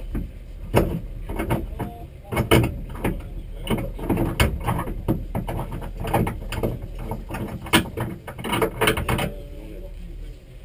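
A run of irregular knocks and clatters on the stationary rally car, some loud, stopping about nine seconds in, over a steady low rumble.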